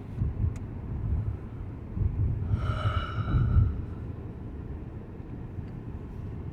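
Steady low road rumble inside a moving car, with a short pitched vocal sound from a person, about a second long, near the middle.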